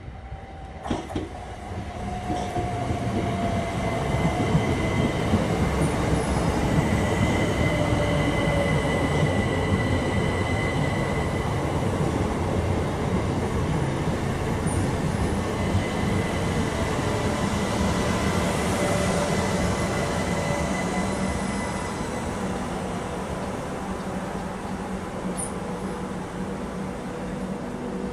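Southeastern electric multiple unit running in alongside the platform and slowing: a steady rumble of wheels on rail that builds over the first few seconds, with a whine that slowly falls in pitch and a thin high squeal held through much of it.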